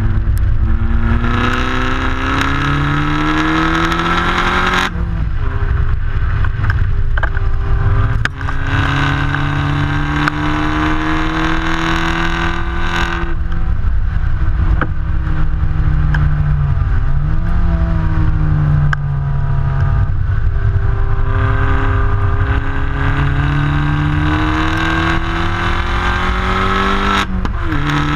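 Opel Corsa OPC Nürburgring's turbocharged 1.6-litre four-cylinder exhaust at full acceleration through the gears. The engine pitch climbs and breaks off sharply at upshifts about five seconds in, about thirteen seconds in and near the end. In the middle it falls away as the car slows, then climbs again. Wind and road rush run underneath.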